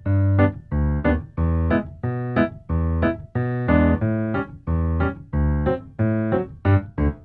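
Bouncy keyboard music, electric-piano or piano chords, with a strong bass note about once a second and lighter chords between.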